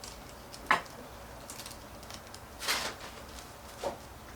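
Handling noise from trim router parts being fitted together: a sharp click about a second in, a short scraping rustle near the middle and a faint knock near the end.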